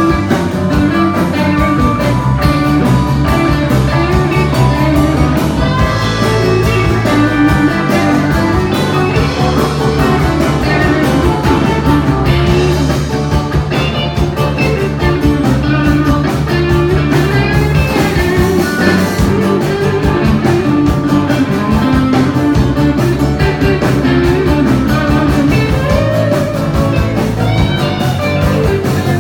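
Blues-rock band playing an instrumental break, the guitar carrying the lead over bass and drums, with no singing.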